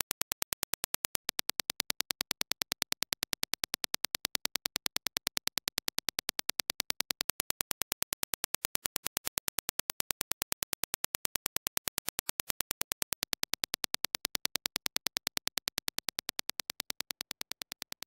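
Reference Dirac impulse test signal: a rapid, evenly spaced train of sharp clicks, fading out near the end.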